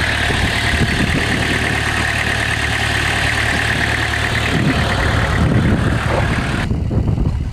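1991 Honda Accord wagon's four-cylinder engine idling steadily on a cold start after sitting since last year, with a thin steady whir over the engine hum. Near the end the higher hiss and whir stop abruptly, leaving a quieter idle.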